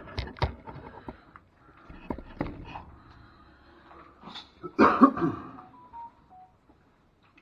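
Rustling clothing and knocks as a body-worn camera is jostled, with a louder brief sound about five seconds in and two faint short beeps near six seconds.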